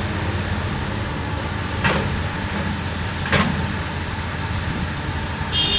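Komatsu PC290LC-10 excavator's diesel engine running steadily, with two sharp knocks a second and a half apart and a short high-pitched tone near the end.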